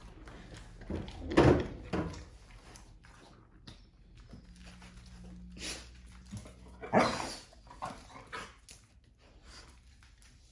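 A dog gives two short vocal sounds, one about a second and a half in and another around seven seconds, with faint small knocks in between.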